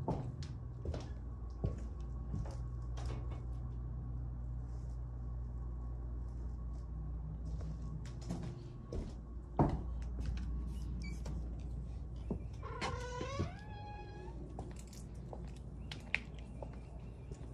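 Footsteps and handling knocks while walking through an empty wood-framed building over a steady low rumble, with a loud knock about ten seconds in. About thirteen seconds in comes a short squeal that steps down in pitch.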